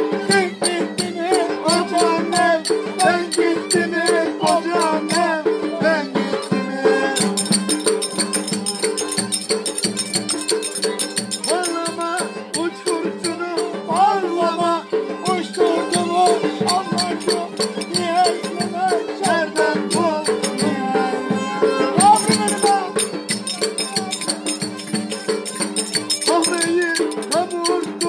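Violin held upright on the knee and bowed, playing a lively Turkish folk dance tune over a steady low drone, with a rhythmic rattling percussion beat running along with it.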